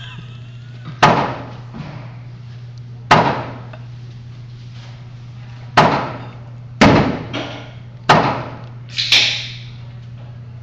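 About six gunshots fired one at a time at uneven intervals of one to three seconds. Each is a sharp crack with an echoing tail, over a steady low hum.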